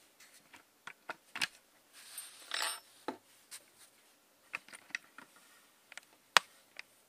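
Handling noise: scattered light clicks and taps of small objects on a tabletop, a brief rustle about two and a half seconds in, and one sharper tap a little after six seconds.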